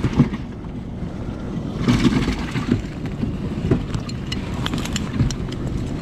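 Wind rumbling on the microphone, with scattered clicks and light knocks from a fish-lip grip and clip being worked while a bass is handled over the livewell.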